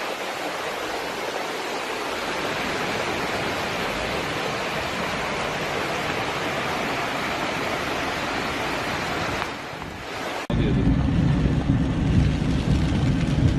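Floodwater rushing, a steady hiss-like noise. It dies away near the end, and an abrupt cut brings in a loud low rumble.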